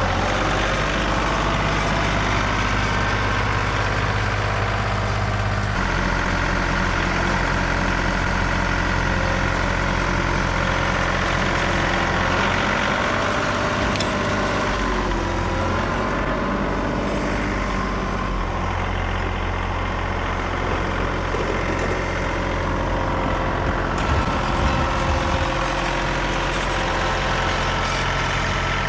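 John Deere 2038R compact tractor's three-cylinder diesel engine running steadily while it pushes snow with a rear box blade; the engine note shifts several times with load and throttle. A few short clunks come about 24 seconds in.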